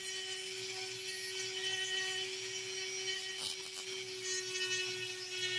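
Flex-shaft rotary tool running steadily at low speed, its sanding band rubbing against an opal as the stone is shaped and sanded, with a steady hum. A short scratchier stretch comes about three and a half seconds in.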